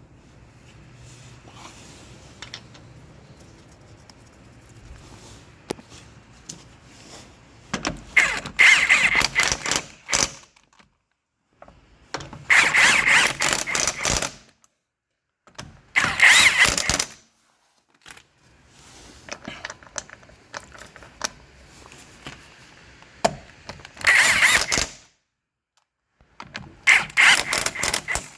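A handheld power tool runs in five short bursts of one to two seconds each, with pauses between them, as bolts are driven during a coilover install.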